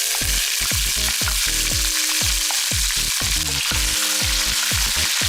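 Sliced onions sizzling steadily in hot oil with whole spices, frying in a pan.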